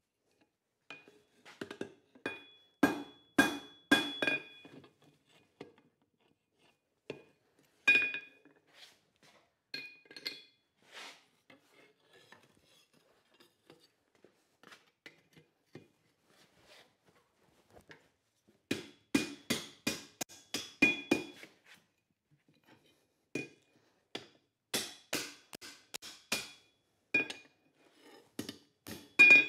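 Hand hammer striking red-hot leaf-spring steel on an anvil, in bursts of several quick blows with the anvil ringing after each, while the tail is bent and folded over. In the middle there is a lull of about six seconds with only light clinks, then the hammering starts again.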